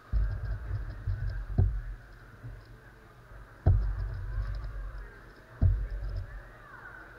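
Magnetic X-Man Galaxy Sculpted megaminx being turned fast during a speedsolve: low rumbling knocks come in three bursts about two seconds apart, with a few sharp knocks and faint clicking of the turning faces.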